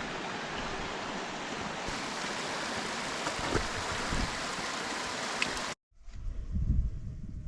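Steady rushing of running water. About six seconds in it cuts off abruptly, and wind starts buffeting the microphone in uneven low gusts.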